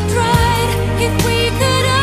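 Background music: a slow pop ballad, sustained melody notes over steady bass notes.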